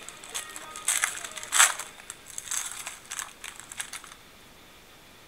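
A foil trading-card pack being torn open and crinkled by hand: a run of crackles and rips, loudest about one and a half seconds in, that stops about four seconds in.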